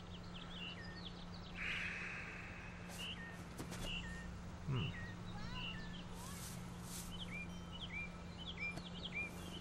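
Birds chirping in repeated short calls, with a quick run of similar calls near the end, over a faint steady low hum. A soft thud about halfway through.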